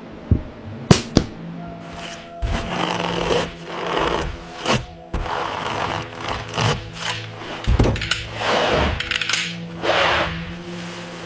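Hand work on building materials: three sharp knocks in the first second or so, then a run of uneven scraping strokes, each lasting about half a second to a second, over a faint steady low hum.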